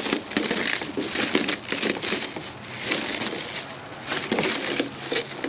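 Clear plastic wrapping crinkling and rustling as it is peeled off a painted RC car body, in an irregular run of crackles.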